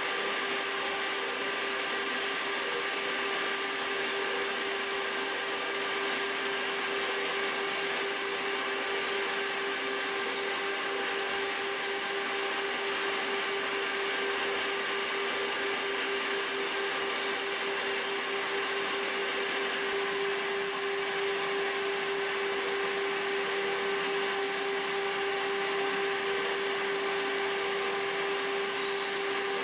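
Homemade CNC gantry router running steadily: a constant motor whine with a steady hiss, unchanging in pitch and level.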